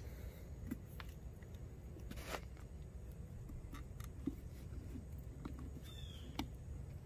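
Scattered light clicks and knocks of a plastic ATV airbox being handled while its air filter is worked loose by hand, over a steady low rumble, with a brief high chirp about six seconds in.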